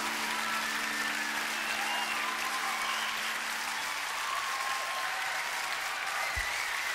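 Concert audience applauding steadily, with a few wavering cheers rising above it, while a held low chord from the band fades out about four seconds in.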